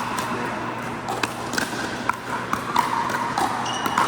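Pickleball play on an indoor court: the hard plastic ball clicking off paddles and the floor about eight times at uneven intervals, with a short high squeak near the end.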